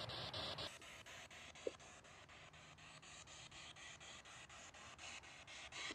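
Near silence: a faint hiss with one short tick about a second and a half in.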